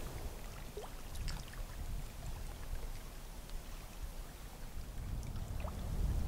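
Wind rumbling unevenly on the microphone, with lake water lapping at the shore. A few faint, short, high chirps come through about a second in and again near the end.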